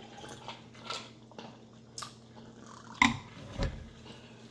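Close-miked eating sounds: faint mouth clicks and chewing, then a louder knock and thud about three seconds in, over a low steady hum.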